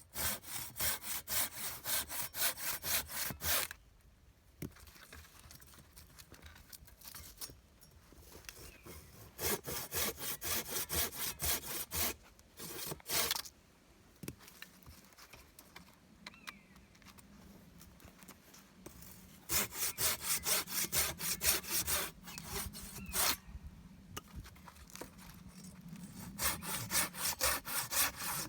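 Hand saw cutting through wood in spells of quick back-and-forth strokes, about three or four a second. Each spell lasts a few seconds, with pauses between.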